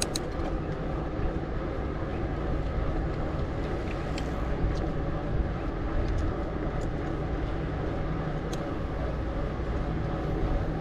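Steady rolling noise of a Specialized Stumpjumper mountain bike being ridden, with a few sharp clicks and rattles from the bike.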